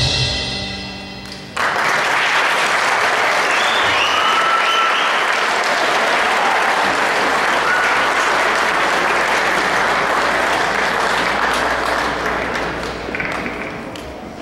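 The band's last chord, with electric guitar, rings out and dies away. About a second and a half in, an audience breaks into loud, steady applause, with a few whistles among it. The applause tapers off near the end.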